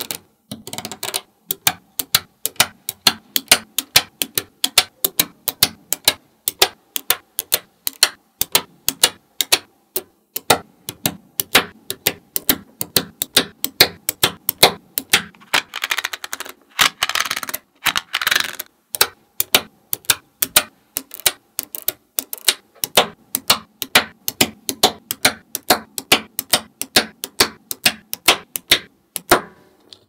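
Small neodymium magnet balls clicking sharply as plates of balls snap onto a block of magnetic balls, several clicks a second. Between about 15 and 19 seconds in, the clicks give way to a longer rattling scrape as a plastic scraper is pressed and slid across the balls.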